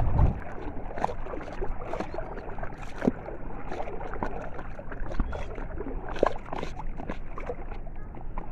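Water lapping and splashing against a small wooden boat, with scattered small clicks and drips throughout.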